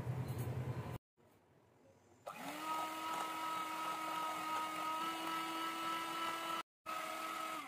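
Electric hand mixer whisking eggs and sugar in a glass bowl: the motor spins up quickly to a steady whine. Near the end it breaks off for a moment, runs again, then stops. A short, fast pulsing sound comes before it in the first second.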